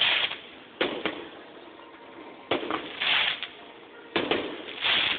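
Fireworks going off one after another, about every one and a half seconds. Each shot is a sharp report followed within half a second by a hissing crackle of sparks.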